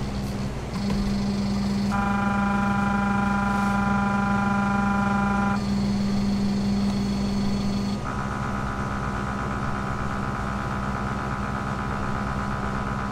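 Stepper motors of a Shapeoko 3 CNC router whining as the machine runs an automatic X, Y and Z probing cycle against a touch probe block. The whine holds a steady pitch through each move and changes pitch as each new move starts, several times over.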